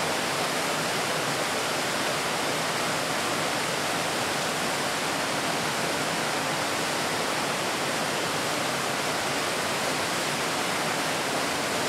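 Steady rush of a small waterfall cascading over rocks, an even unbroken hiss of water.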